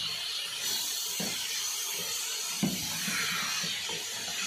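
Chicken and vegetable strips sizzling in a hot kadhai on high heat while a wooden spatula stirs through them, with a couple of short spatula strokes against the pan.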